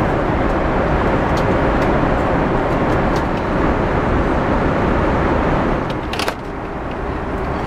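Steady cabin roar of an Airbus A340-300 in cruise flight, a dense even rush of engine and airflow noise. A short sharp click about six seconds in, after which the roar is slightly quieter.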